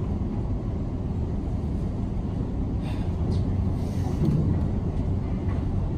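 Steady low rumble of heavy demolition machinery running, with a constant low engine hum, heard through a closed window. A couple of faint knocks come about halfway through.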